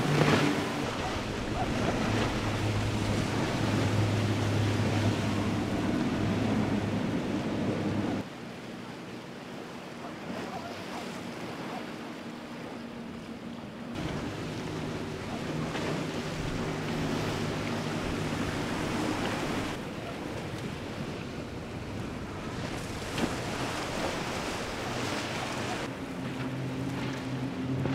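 Outboard-powered boats running past at speed, starting with twin Yamaha outboards: a steady engine drone over the rush of hull spray and waves. The sound changes abruptly about eight, fourteen and twenty seconds in as one boat gives way to the next.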